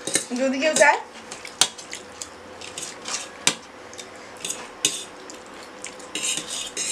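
Metal forks clinking and scraping against stainless steel plates while eating noodles: scattered sharp clicks with a few short scrapes.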